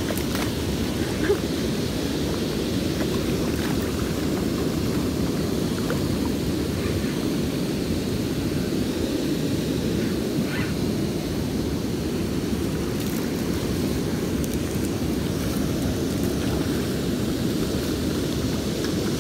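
Steady low rumble of wind buffeting the microphone over flowing river water, with a single short knock about a second in.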